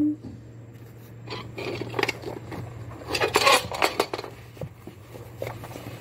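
Rustling, light clicks and small clinks of a phone being handled and rubbed against hair, clothes and furniture, busiest in the middle, over a steady low hum.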